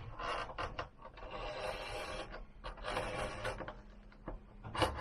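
Several short bursts of scraping and rustling, each under a second, with a sharp knock near the end.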